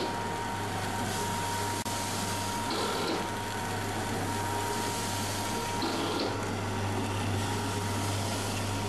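Vertical form-fill-seal salt packing machine running, with a steady motor hum and a constant high tone under an even hiss. A short burst of sound comes twice, about three seconds apart.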